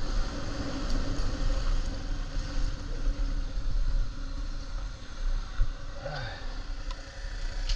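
Small motorbike engine running with a steady low rumble while the bike rides along the road.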